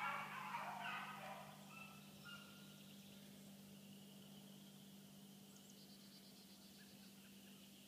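A pack of hunting dogs baying together while running a rabbit's trail; the chorus fades out about a second and a half in. Then it is quiet, with a few faint bird chirps.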